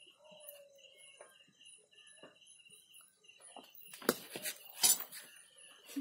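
A metal snake hook clinks and scrapes sharply on the tarmac a few times, about four to five seconds in. Under it runs a faint, steady, high pulsing chirp.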